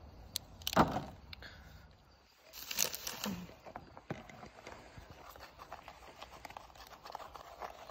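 Cake-mix packaging being opened and handled: a knock about a second in, a short crinkling, tearing burst around three seconds, then faint rustling and small ticks.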